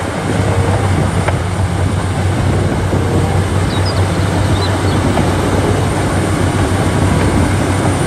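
Large crawler bulldozer working under load, its diesel engine running with a steady low drone under the clatter of the tracks as the blade pushes earth.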